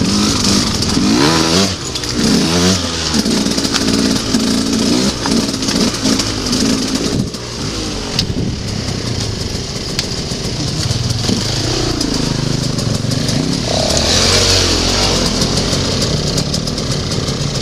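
Enduro motorcycle engine heard close up from the bike being ridden, revving up and down again and again, its pitch rising and falling several times.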